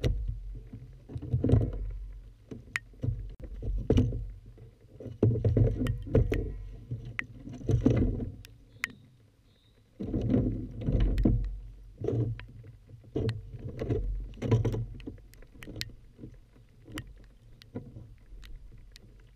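Irregular low thumps and rumbling from movement and handling aboard a plastic sit-on-top kayak, with scattered sharp ticks of raindrops striking the camera housing.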